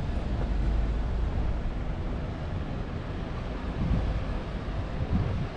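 Steady city street noise with a deep, even rumble, like traffic and wind on the microphone.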